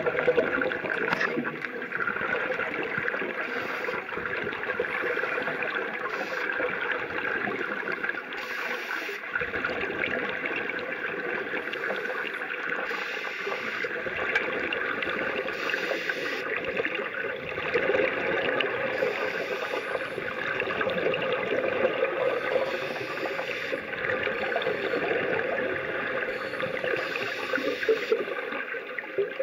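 Scuba divers' regulators and exhaled bubbles heard underwater in a pool: a steady rushing gurgle of bubbles.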